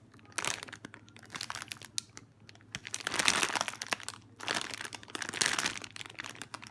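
Clear plastic packaging bag crinkling as hands squeeze a soft foam cake-slice squishy inside it, in three bouts with short pauses between.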